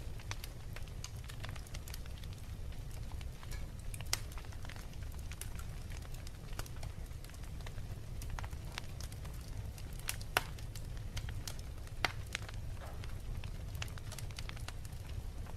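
Log fire crackling in a fireplace: scattered sharp pops and snaps, with a few louder pops about four, ten and twelve seconds in, over a steady low rumble.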